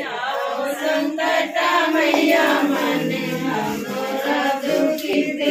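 Several women singing a devotional song together, many voices in unison with no instruments standing out.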